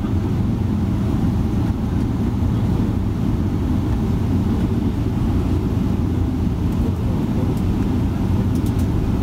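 Jet airliner taxiing, heard from inside the cabin: a steady low rumble from its engines and rolling along the taxiway.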